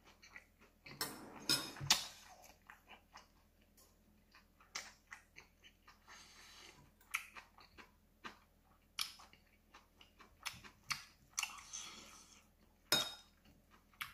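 Close-up chewing of a big mouthful of braised pork rice bowl, with short crisp clicks throughout. A metal spoon clinks and scrapes against a ceramic bowl now and then, most sharply near the end.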